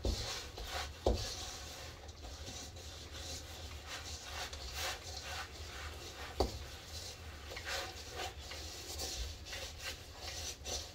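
Wooden spoon stirring a sticky granola mix of oats, nuts and dried fruit in a large stainless steel mixing bowl: repeated scraping and rubbing strokes, with two sharp knocks of the spoon against the bowl, about a second in and again past the middle.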